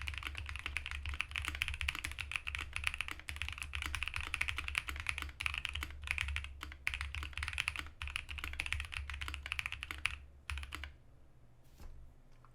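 Fast continuous typing on a Space65 Cybervoyager mechanical keyboard with lubed Holy Boba switches, FR4 plate and GMK Laser keycaps: a rapid stream of keystroke clacks that thins to a few last strokes and stops near the end.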